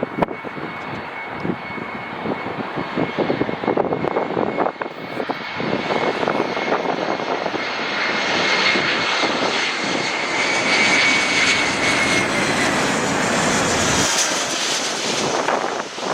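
Airbus A321 airliner's jet engines on a landing approach: a loud roar carrying a steady high whine that fades out about twelve seconds in. The roar grows louder and brighter from about eight seconds on, with wind buffeting the microphone.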